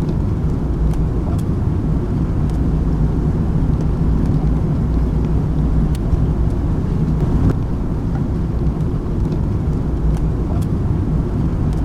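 Steady low rumble of road vehicles running, with a few faint ticks.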